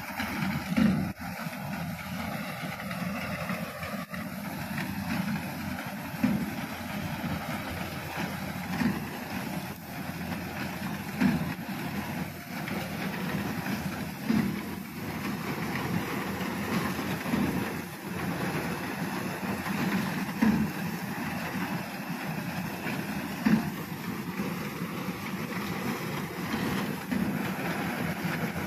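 Reaper binder running while harvesting wheat: a steady engine and machinery noise, with a louder knock coming about every three seconds.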